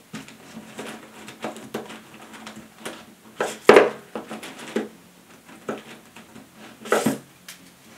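Felt-tip markers clicking and rattling against each other in a packed cup as a hand rummages through them and pulls some out, with louder clacks a little past the middle and near the end.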